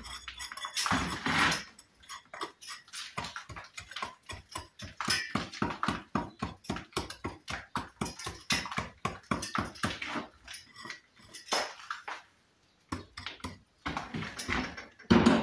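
A small 400 gram brick hammer striking brick in quick, light, repeated blows, several a second, chipping away the damaged face of bricks to recess them for slips. There are a few heavier knocks and a brief pause a little after the middle.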